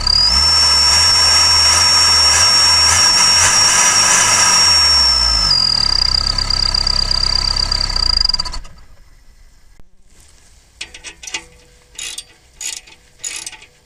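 Fake turbo whistler in a vehicle's exhaust giving a steady high whistle over the running engine. The whistle steps up in pitch just after the start, holds about five seconds, then drops back and cuts off about eight and a half seconds in. Near the end there are a few sharp clicks.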